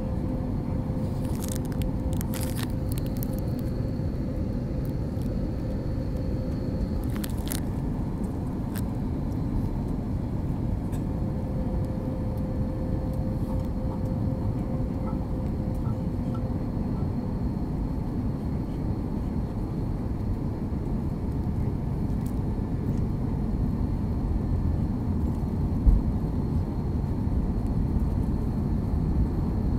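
Airliner cabin noise during descent: a steady low rumble of jet engines and rushing air, with a faint steady hum. A few light clicks come about two and seven seconds in, and a single thump near the end.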